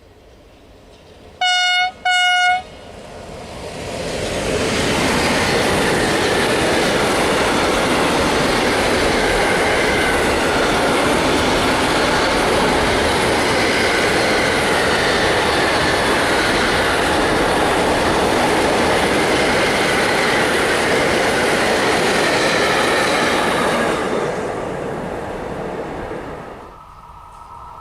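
An E494 electric locomotive sounds two short horn blasts. It then passes close by with its container freight train, a steady loud rumble of wheels and wagons lasting about twenty seconds before fading away.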